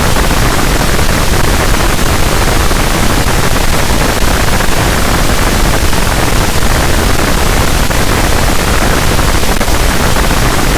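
Harsh noise wall: a loud, unchanging wall of dense distorted static filling the whole range from deep rumble to high hiss, heaviest in the low end.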